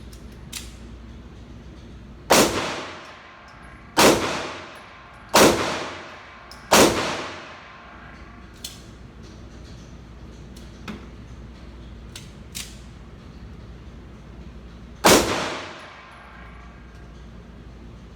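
Five 9mm pistol shots from a Springfield EMP4 1911, each with a ringing tail. Four come about a second and a half apart, then there is a gap of about eight seconds before the fifth, where the pistol was jamming.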